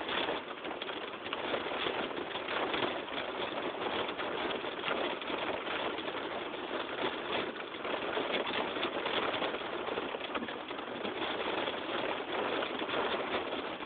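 Heavy rain beating on a car's roof and windshield, heard from inside the car as a dense, steady patter.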